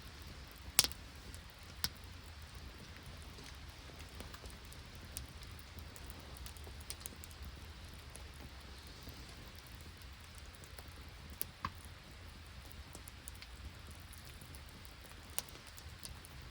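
Steady light rain pattering, with a few scattered sharp ticks, the loudest about a second in.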